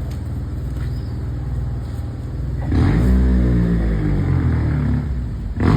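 Motor vehicle engine running steadily on the street. About two and a half seconds in, a louder vehicle engine comes in with its pitch sliding up and down, as when a car accelerates or passes close by. A sharp knock comes near the end.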